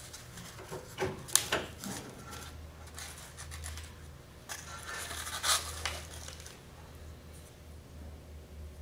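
Light clicks, taps and rubbing as short wooden popsicle sticks are handled and pressed on with a hot glue gun onto a foam mold, with a sharp click about a second in and a stretch of rustling about halfway through.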